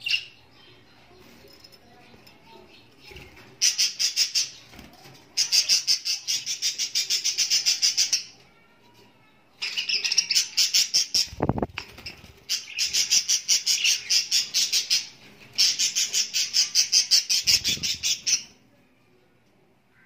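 Budgerigar chicks calling in the nest: five bouts of fast, evenly repeated rasping chirps, about seven a second, each bout lasting one to three seconds. A dull bump sounds about halfway through.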